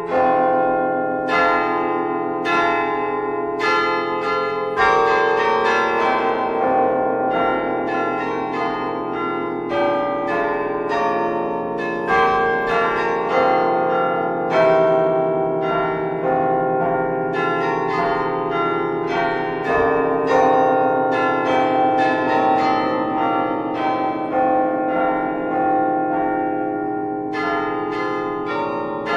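Church bells ringing a continuous peal: several bells struck over and over, about one to two strikes a second, each note ringing on and overlapping the next.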